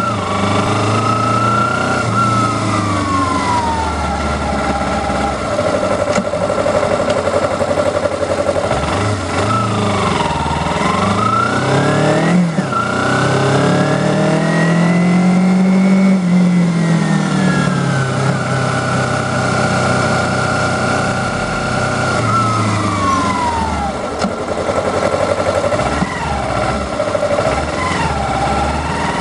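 2010 Kawasaki Ninja 250R's parallel-twin engine running under way, its revs rising and falling with the throttle: a quick climb and sharp drop about twelve seconds in, a long slow rise and fall through the middle, and another dip and rise near the end.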